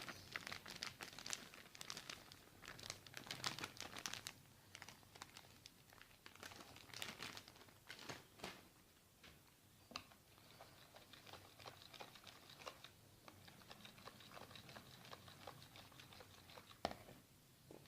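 Faint crinkling and small irregular clicks of handling in the kitchen, as gram flour (besan) is tipped into a bowl of yogurt.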